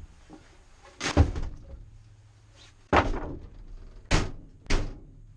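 Knocks and thuds in an empty ply-lined van load bay as things are loaded, then the van's rear doors are swung shut: four sharp bangs in all, the last two about half a second apart.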